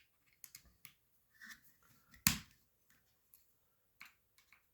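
Scattered light clicks and taps of small metal tools and parts being handled, with one sharper, louder click a little over two seconds in, as Allen keys are picked up and set into the receiver's screws.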